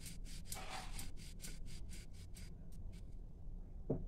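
Rolling pin rolling out a roti of wheat dough on a rolling board: a rhythmic rubbing, about four to five strokes a second, that stops about two and a half seconds in.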